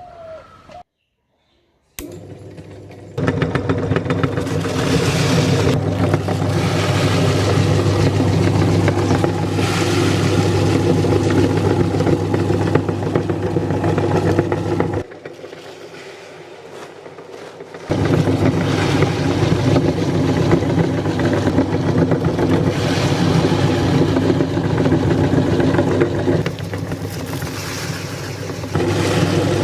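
Electric meat grinder running with a steady motor hum and a crackling, crunching noise over it as Kurkure chips are ground. The motor drops off for about three seconds midway, then runs again.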